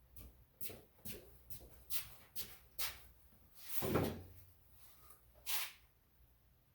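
Light knocks and clatters of a wooden frame being handled, about two a second, with a louder thump about four seconds in and another sharp knock near five and a half seconds.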